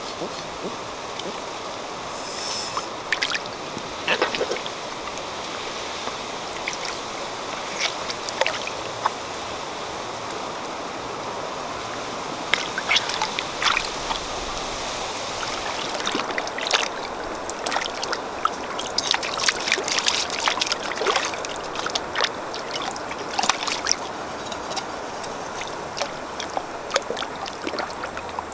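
Water splashing and sloshing as hands work and rinse a large, freshly gutted fish in a shallow stream, over a steady hiss of water. The splashes come thicker in the second half.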